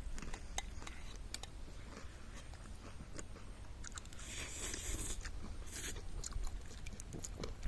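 A person eating pani puri, crunching the crisp puri shells and chewing, with louder crunching noise about four and six seconds in.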